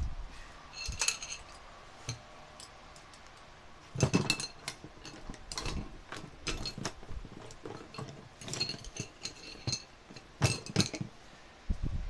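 Scattered metallic clinks and knocks, some with a short ring, coming in clusters a few seconds apart, as tools and small metal parts are handled during appliance repair work.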